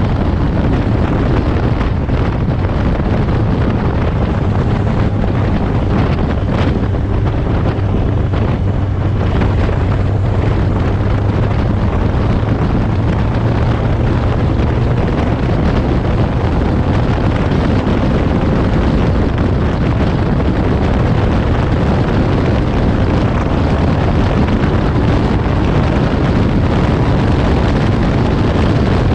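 Open-cockpit race car at racing speed: the engine running hard under load, mixed with heavy wind buffeting on the microphone.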